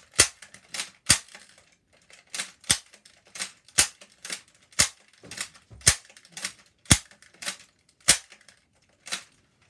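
Nerf blaster being rapidly primed and fired over and over: a string of sharp plastic clacks and pops, roughly two a second, with a short pause about two seconds in.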